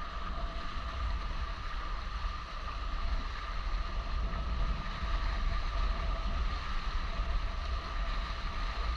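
Steady rush of water along the hulls of a small Maricat 4.3 catamaran under sail at about 20 km/h, with wind buffeting the microphone in an uneven low rumble.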